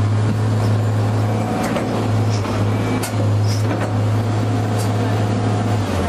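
Excavator's diesel engine running hard and steady under load as it presses its attachment down onto the marble bench, with a few sharp clicks and knocks.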